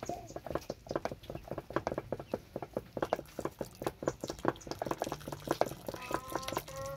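Thick uji porridge making quick, irregular wet plops and pops, several a second. A chicken clucks briefly near the end.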